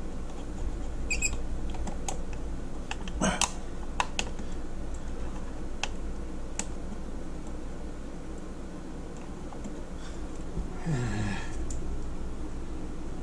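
Small plastic clicks and taps as an under-cabinet puck light and its round plastic cover are handled and fitted back in place, the loudest click about three seconds in. Near the end comes a short sound falling in pitch.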